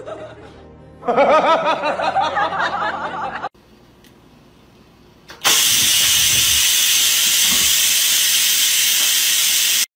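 A cat meowing over about two seconds. Then a loud, steady hiss of steam venting from an electric pressure rice cooker that a cat has pawed at, cutting off suddenly near the end.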